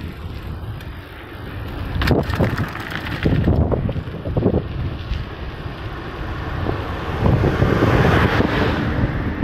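Wind buffeting the microphone of a phone carried on a moving bicycle, with a few sharp knocks and rattles between about two and five seconds in, and the wind noise growing louder near the end.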